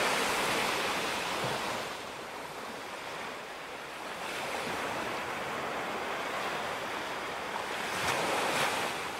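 Ocean surf: waves breaking and washing in as a steady rushing noise that swells and eases, loudest at the start and building again to surges near the end.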